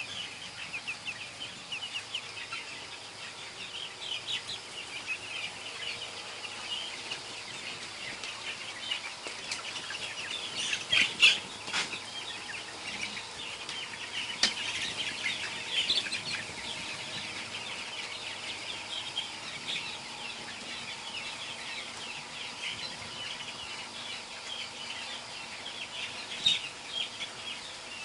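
A flock of 15-day-old broiler chicks cheeping densely and continuously. A few brief, sharp, louder noises cut through, the loudest about eleven seconds in.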